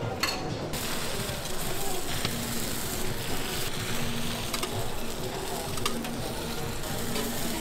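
Giant takoyaki batter sizzling in hot griddle pans, with a few short clicks of metal tongs.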